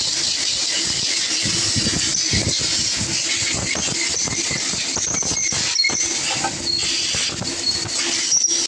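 Steady workshop hiss and hum with irregular light metal clicks and knocks as the water line pipe is handled and set onto the Cummins KTA50's cylinder heads, and a few brief high squeaks about five seconds in and again near the end.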